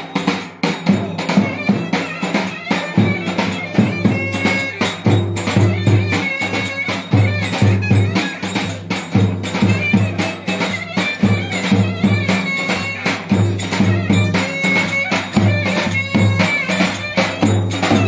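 Turkish clarinet playing a folk dance tune (oyun havası) over the steady beat of a davul bass drum.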